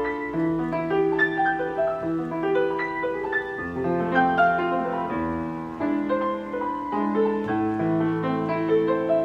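Steinway-voiced piano playing a slow passage of held melody notes and chords over sustained bass notes.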